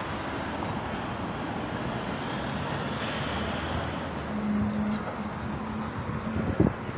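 A tanker lorry driving past close by, its engine and tyres making a steady road noise that swells as it goes by. A short low hum comes in a little past halfway, and there is a brief knock near the end.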